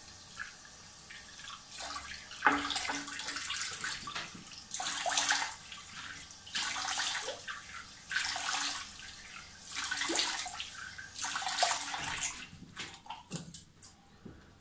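Water from a sink tap being scooped up by hand and splashed onto the face in repeated splashes, about one every second and a half, wetting the beard to soften it before shaving soap goes on. The splashes die away near the end.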